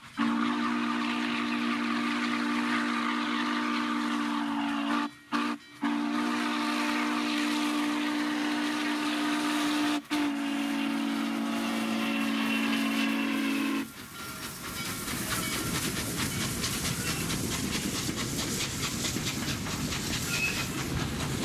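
Steam locomotive's multi-note chime whistle blown in long blasts, broken by short gaps about 5 and 10 seconds in. About 14 seconds in the whistle stops, leaving the rumble of the passing train with a fast, even clatter of wheels on the rails.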